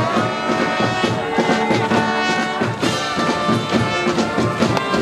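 School brass band of trumpets, trombones and saxophones playing a baseball cheering song, held brass notes over a steady drum beat.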